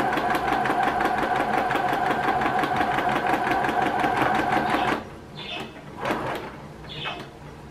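Electric sewing machine stitching at a rapid, even rhythm, its needle punching through a paper practice sheet, then stopping abruptly about five seconds in. After that come only a few faint clicks and rustles.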